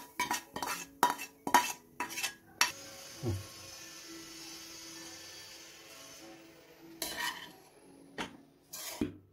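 A slotted metal spatula clanks repeatedly against the pans as scrambled egg is scraped from one pan into a steel wok of fried rice. Then comes a stretch of steady stirring and tossing of the rice in the wok, with a few more clanks near the end.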